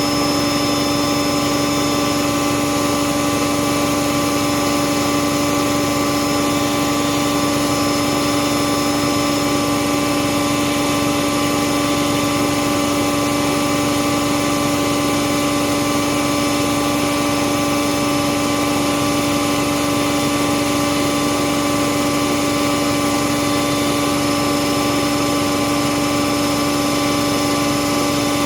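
Bauknecht WAS 1400 washing machine running at a steady speed, a constant motor whine over mechanical hum that does not change.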